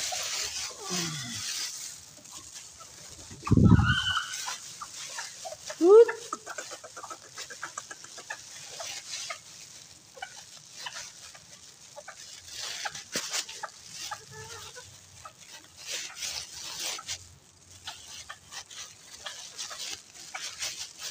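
Flock of bantam chickens clucking and pecking at a concrete floor, with many small clicks throughout. A loud low thump comes about three and a half seconds in, and a short, sharp rising squawk about six seconds in.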